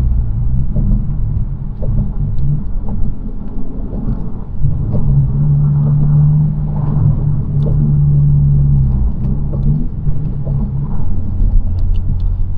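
Honda Civic Si engine and road noise heard inside the cabin while driving: a steady low rumble whose engine note shifts in pitch a few times, dropping about ten seconds in.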